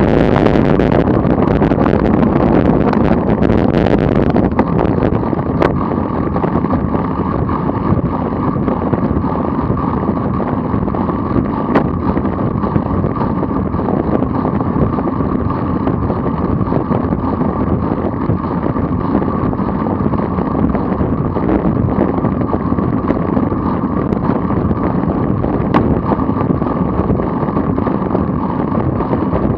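Steady wind noise buffeting the microphone of a camera mounted on a moving vehicle at about 25 mph, with road and running noise underneath.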